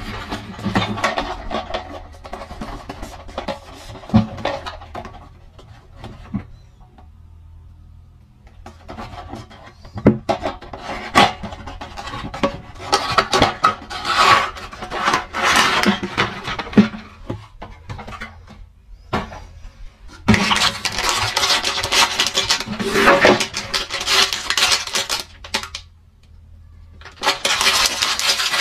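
Close-miked ASMR handling of a toy dinosaur surprise egg: taps, clicks and long stretches of scratching and crackling as it is worked open, with short pauses between.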